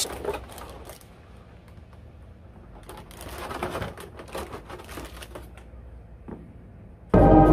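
Clear plastic blister packaging crinkling and crackling as it is handled, in scattered sharp clicks. Loud music starts abruptly near the end.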